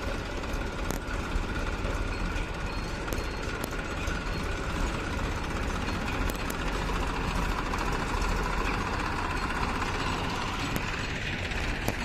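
Massey Ferguson 1035 tractor's diesel engine running steadily under load as it pulls a trolley full of soil.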